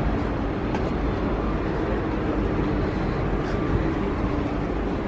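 Steady low rumble of city street noise, with traffic.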